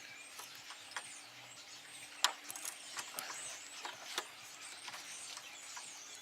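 A few sharp metal clicks and knocks of hand tools working on a child's quad bike wheel and brake, about four separate knocks spread over several seconds, over faint background.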